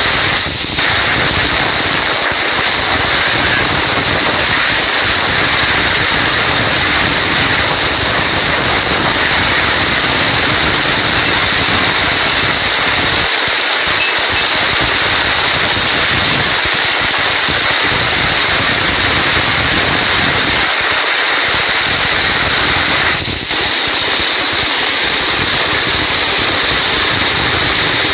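Heavy rain falling steadily: a dense, even hiss of downpour with no thunder or other distinct sounds.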